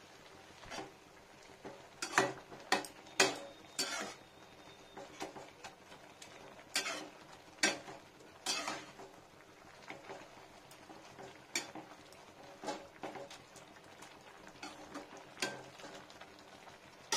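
A perforated metal spoon knocking and scraping against a non-stick kadai, with about a dozen irregular clinks, while it turns water spinach blanching in boiling salted water.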